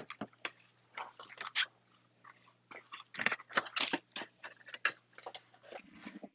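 Irregular crackling and crunching clicks from a small object being handled.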